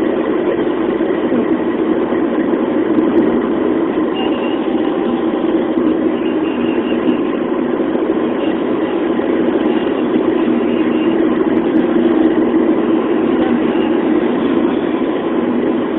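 Steady road noise inside a moving car's cabin: tyre and engine drone at highway speed, unbroken throughout.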